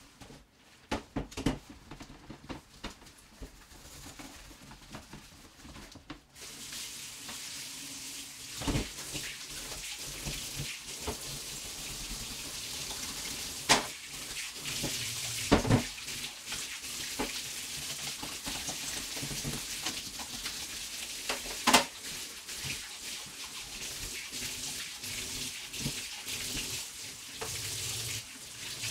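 Tap water running into a sink, starting about six seconds in, with occasional knocks and clatter of things being handled and rinsed.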